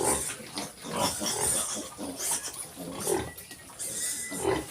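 A litter of 23-day-old piglets making many short, irregular grunts and squeals: the piglets are hungry.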